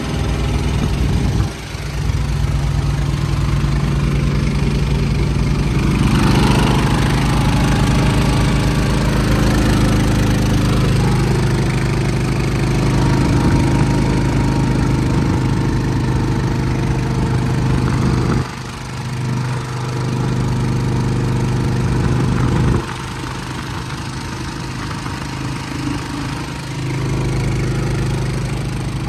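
Westinghouse iGen4500 inverter generator running steadily in a truck-mounted toolbox, with its ventilation fan, while a neighbouring truck's diesel APU runs alongside. The loudness drops suddenly a few times.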